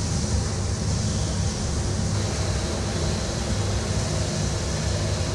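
Fire hose spraying water in a steady rushing hiss over a deep, even rumble, continuous throughout.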